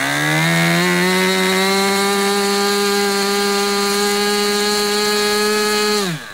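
Small engine running at high speed: it revs up during the first second, holds a steady, high pitch, then drops sharply and cuts out near the end.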